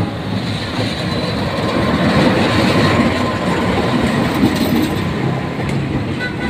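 KAI CC206 diesel-electric locomotive passing close by with its engine running, then passenger coaches rolling past, their wheels running on the rails. The sound is loud and steady.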